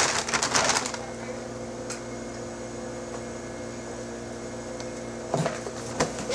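A paper bag crinkling and rustling as it is handled for about the first second and again near the end. In between, a steady hum with several fixed tones.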